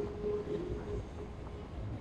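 A low, steady rumble of city street noise, with a faint voice near the start.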